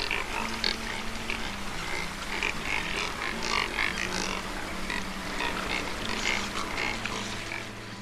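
A resting flock of Neotropic cormorants, terns and skimmers calling: a dense, unbroken chatter of many short, high calls, with low grunts of the kind Neotropic cormorants make.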